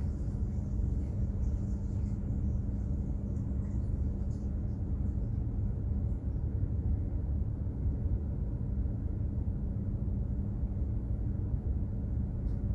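Container ship under way: a steady low rumble of its engines and machinery with a constant low hum.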